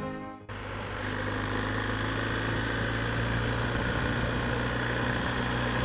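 BMW R 1250 GS boxer-twin engine running steadily at an even pitch, picked up by a wireless mic inside the rider's helmet.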